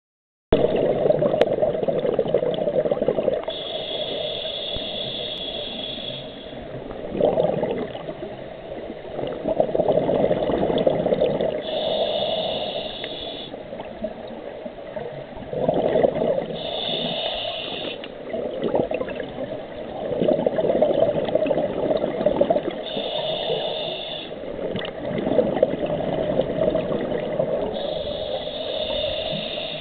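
Scuba diver breathing through a regulator underwater: five hissing inhalations, each with a faint whistle and about five seconds apart, alternate with gurgling surges of exhaled bubbles.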